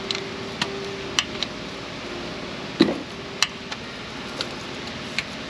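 Scattered clicks and knocks of hands and tools working at a stuck plastic coolant bypass elbow held in with O-rings, the loudest knock nearly three seconds in, over a steady low hum.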